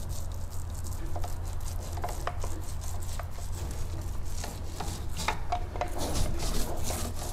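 Paint roller on an extension handle worked back and forth through a thick coat of wet high-build primer on a fiberglass cockpit floor: a soft, sticky rolling with light clicks and crackles, busier in the second half.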